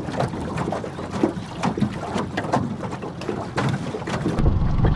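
Small waves lapping and slapping against the hull of an aluminium jon boat, as a string of irregular small knocks and splashes.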